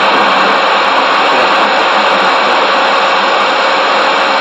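Loud, steady static hiss from a radio receiver tuned to 27.340 MHz AM (CB channel 34), with a faint steady whistle running through it.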